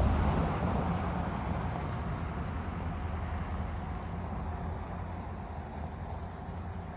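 Low rumble of a motor vehicle on a nearby road, slowly fading away as it drives off.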